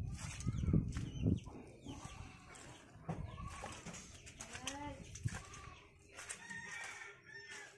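Domestic chickens clucking, with a few short rising-and-falling calls in the middle. Low thumps of footsteps come in the first second and a half.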